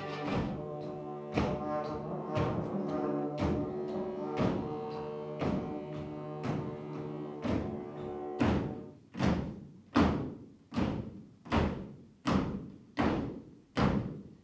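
Folk tune on a button accordion and a brass instrument, with a steady knocking beat. About eight seconds in the tune falls away, leaving heavy rhythmic stamps of dancers' feet on the stage floor, about one every 0.8 s.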